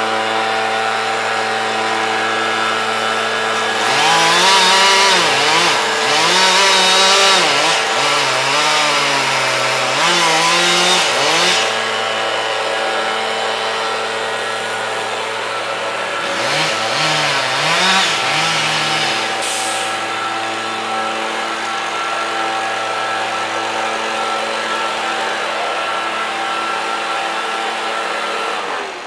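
Chainsaw cutting wood in two spells, the first about four seconds in and lasting some eight seconds, the second shorter, its pitch wavering up and down under load. A steady engine drone runs beneath it throughout.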